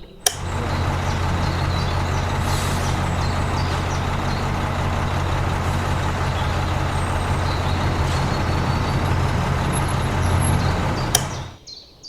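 A small electric motor, as in a DIY toy construction vehicle, running steadily with a low hum and a whirring rattle. It is switched on with a click just after the start and cuts off with a click about a second before the end.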